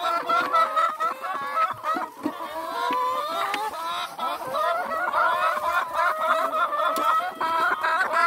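A flock of hens clucking and chattering, many calls overlapping without a break, with a few light clicks among them.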